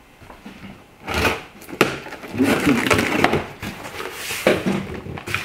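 A long cardboard box being handled on a table: irregular scraping and rustling with several sharp knocks.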